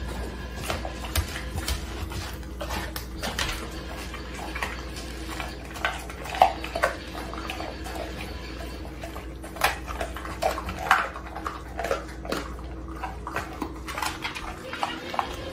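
Dog licking and gnawing at a whole raw chicken on the floor: irregular wet smacks and sharp clicks of teeth and mouth on the carcass, with a few louder ones about six and eleven seconds in.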